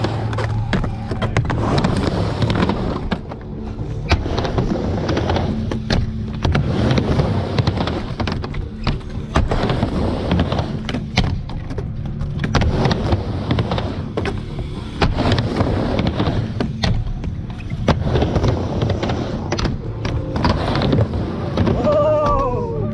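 A skateboard rolling and clacking on a skatepark ramp, with sharp impacts from the board and wheels, under rock music.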